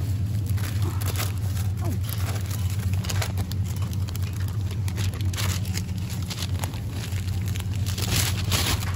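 A steady low mechanical hum or rumble with scattered clicks and rattles over it, cutting off sharply near the end.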